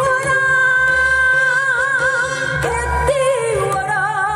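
Woman singing in Korean folk (sori) style into a microphone over a backing track. She holds a long note that breaks into wide vibrato, slides through a pitch turn about three seconds in, then holds the next wavering note.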